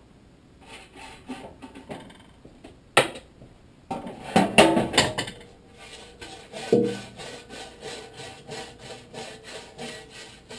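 Silicone pastry brush strokes scraping and rubbing oil over a metal baking sheet, with a sharp knock about three seconds in and a louder stretch of scraping around four to five seconds as the tray is handled. Faint background music comes in near the end.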